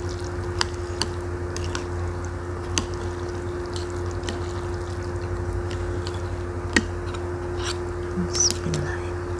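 Wooden spoon and chopsticks stirring noodles and meatballs in a bowl of bakso soup: scattered light clicks of wood on the bowl and wet stirring, over a steady low hum.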